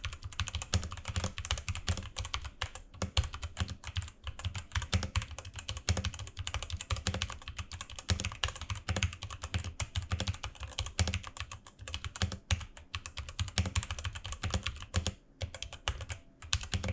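Typing sound test on a Rexus Daiva RX-D68 65% mechanical keyboard: a fast, continuous stream of key clacks, thinning briefly near the end. Its stabilizers are factory-lubed, with no rattle or ticking.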